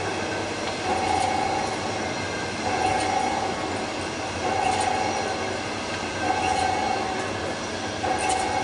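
Heavy lathe machining a large steel cylinder sleeve: a steady metal-working din with a high squeal of under a second that comes back about every two seconds, five times.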